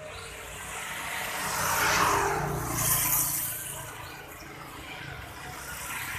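A motor vehicle passing by on the street, its engine and tyre noise swelling to a peak about two seconds in, rising again briefly, then fading to a steady traffic hum.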